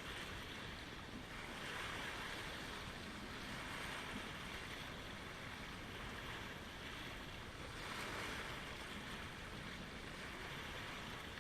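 Small lake waves washing against the shoreline: a steady wash of water that swells louder about two seconds in and again about eight seconds in.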